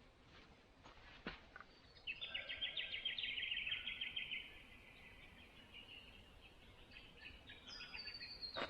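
A bird singing a rapid trill of high repeated notes lasting about two and a half seconds, followed near the end by a few more high, stepped calls. A couple of faint clicks come in the first seconds.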